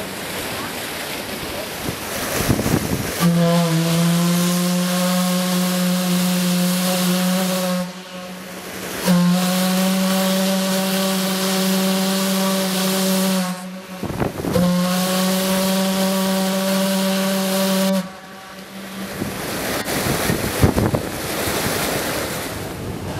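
The steam tug S.S. Styrbjörn's steam whistle sounding three long, steady blasts of about four to five seconds each, with steam hissing before, between and after the blasts.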